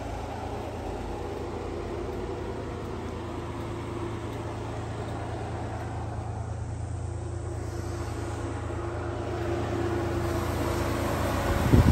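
Honda Acty mini truck's small three-cylinder engine idling steadily, with a brief low rumble near the end.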